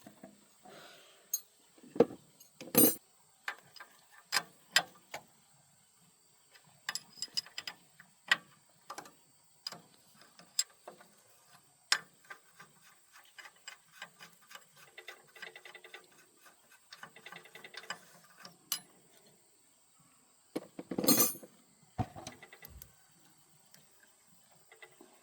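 Hand tools clinking and knocking on metal engine parts: scattered sharp clicks and taps, a few louder clanks, and a short spell of metallic ringing in the middle.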